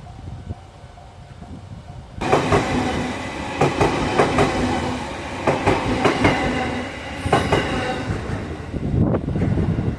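Train passing close by, coming in abruptly about two seconds in, its wheels clicking repeatedly over the rail joints.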